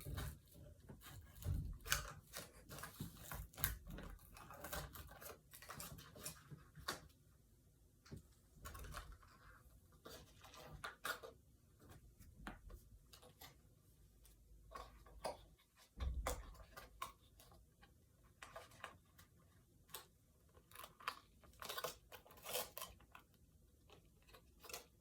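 Faint, irregular clicks, crinkles and rustles of toy car packaging being handled and pulled open, with a few low bumps.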